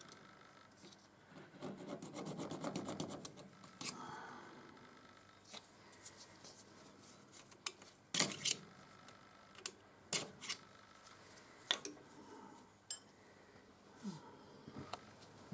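Thin steel rod scraping and prodding at the sawn-through remains of a broken stud inside a thread chaser: a spell of metal-on-metal scraping about two seconds in, then a series of sharp metallic clicks and taps.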